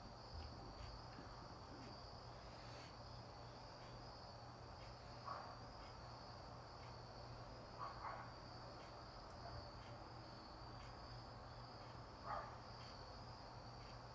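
Faint steady chorus of crickets and cicadas, a continuous high trill, with three brief soft sounds about 5, 8 and 12 seconds in.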